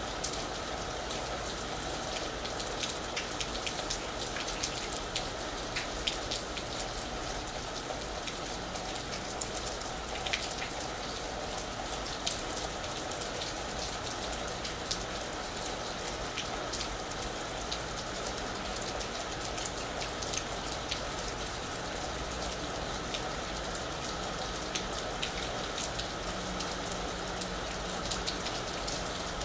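Steady rain falling on a roof: an even hiss with many sharp, scattered drop ticks.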